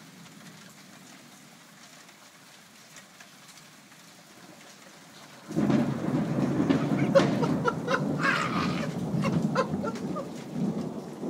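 Faint steady rain hiss, then about five and a half seconds in a loud thunderclap from a nearby lightning strike breaks in suddenly and rolls on as a deep rumble with sharp cracks through it.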